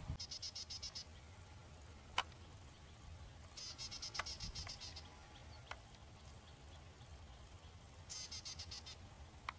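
An insect chirping in three short, high-pitched trills of rapid pulses, each about a second long: one at the start, one near the middle and one near the end. A few sharp clicks fall between the trills, the loudest about two seconds in.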